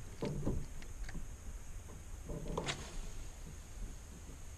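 Soft plop of a wacky-rigged plastic worm landing in calm lake water just after the start, followed by a few faint small splashes and knocks over a low steady hum.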